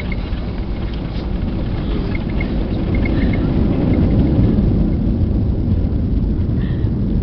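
Airliner cabin noise: a steady low rumble of the engines and airframe heard from inside the cabin, growing louder over the first few seconds and then holding.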